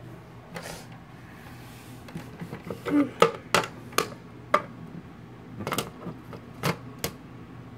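Irregular sharp taps and clicks, about a dozen over five seconds, from small plastic toy figurines and props being handled and set down on a desk.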